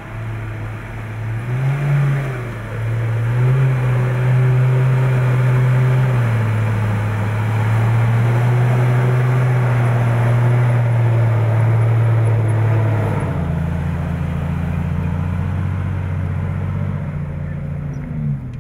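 Four-wheel-drive vehicle's engine revving in two swells, then held at steady revs for several seconds. It drops to a lower note about two-thirds of the way through and revs briefly once more near the end.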